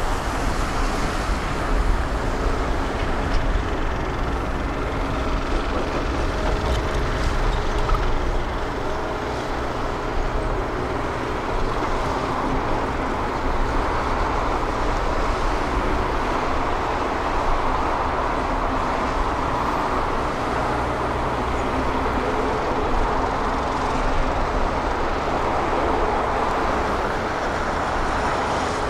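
Heavy diesel machinery, a Volvo truck and a Hitachi 225 USR excavator, running steadily, a continuous engine drone over a broad hiss.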